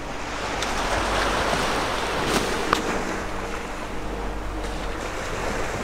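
Small waves washing onto a sandy beach, the surf swelling about a second in and easing off later. There are two light clicks near the middle.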